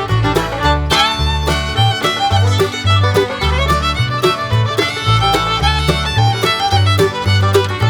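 Upbeat background music led by fiddle over a steady plucked bass line, in a bluegrass-country style.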